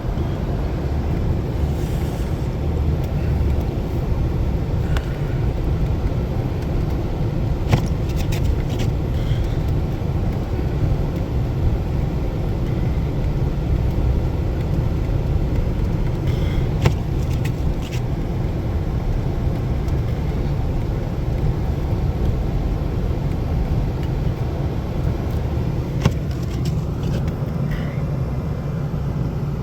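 A car driving in four-wheel drive on a snowy road: a steady low rumble of engine and tyres, with a sharp click now and then.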